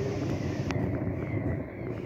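Wind buffeting the microphone in a steady low rumble, with a few faint ticks.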